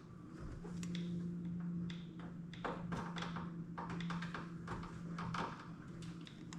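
Scattered clicks, taps and knocks of plastic push-pin clips and bumper trim being handled and pressed into place, over a steady low hum that sets in about half a second in.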